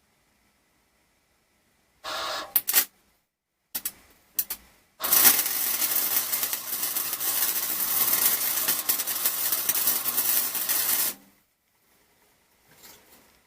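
Welding arc crackling: a short burst about two seconds in, a few brief arc starts, then a steady run of about six seconds that cuts off sharply, with a low electrical hum under it. The arc is laying a bead that leaves slag to be cleaned off.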